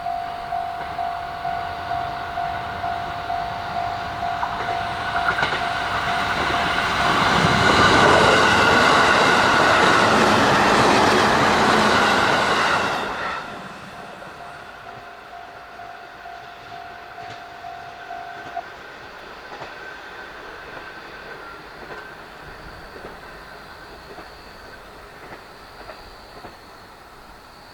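Japanese level-crossing warning bell ringing in a steady, repeating ding, about one and a half strikes a second. A JR East E531 series electric train passes over the crossing: it builds from about five seconds in, is loud for several seconds, and cuts off sharply about 13 seconds in. The bell rings on a few seconds longer and stops about 18 seconds in.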